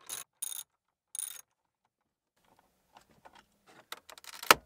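A ratcheting driver clicking in three short strokes as it backs out a T20 screw from the plastic dashboard trim. After a pause come light plastic clicks as the trim panel is handled, and one sharp knock near the end.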